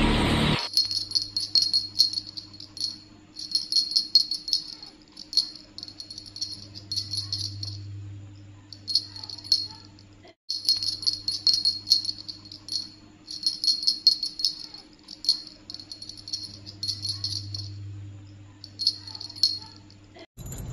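High jingling rattle in short repeated spells over a steady low hum, cut off by a brief silence about ten seconds in.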